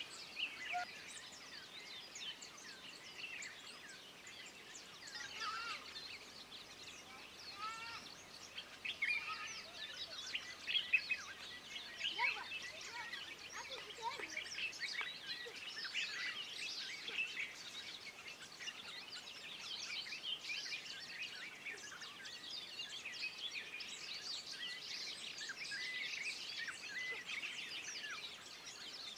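A chorus of many small birds: dense, overlapping short high chirps and twitters, with a few lower whistled slurs in the first third.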